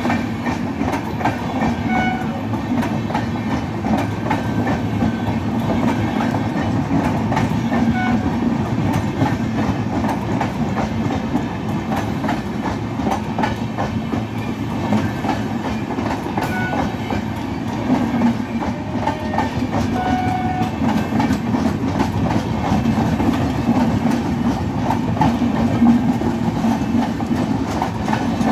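Passenger coaches of an Indian Railways train running past at speed: a steady, loud rumble of steel wheels on the rails, with a constant patter of clicks from the wheels and running gear.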